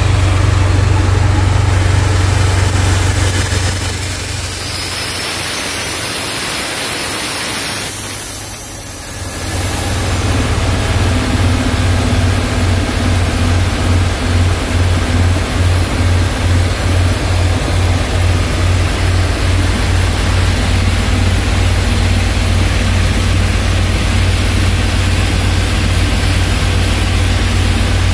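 Diesel-engine-driven screw vacuum pump skid running under test, its Isuzu 6HH1 six-cylinder diesel and the pump giving a steady low drone. It eases off for a few seconds with a high hiss over it, then comes back to full level about ten seconds in with a regular low pulsing.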